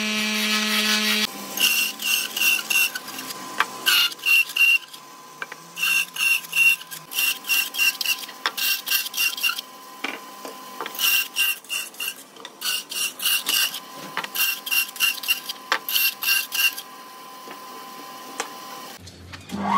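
Horizontal slot mortiser running for about a second. Then a bandsaw cuts wood in quick repeated bursts, about four or five a second in short groups, over the steady hum of the running machine. Near the end the bursts stop and a different machine's steady motor tone starts.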